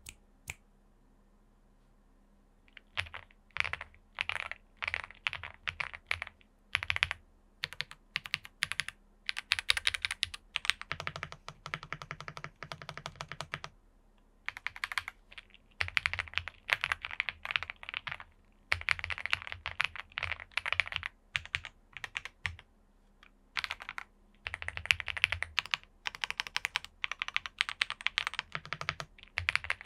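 A Chilkey ND75 mechanical keyboard with EF Dopamine Blue switches in its top-mount configuration, typed on in runs of quick keystrokes broken by short pauses. The typing starts about three seconds in.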